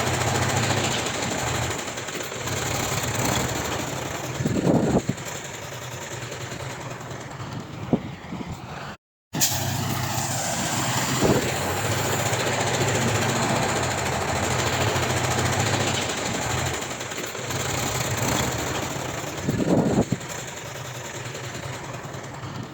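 Heavy diesel earthmoving machinery running steadily, with a few brief metal knocks and clanks. The sound cuts out for a moment about nine seconds in.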